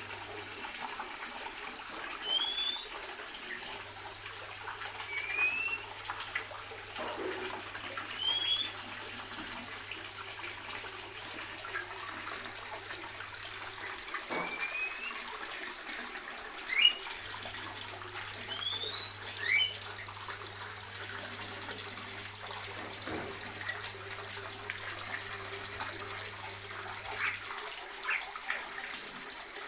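Aviary birds giving short, sharply rising chirps every few seconds over a steady rushing hiss.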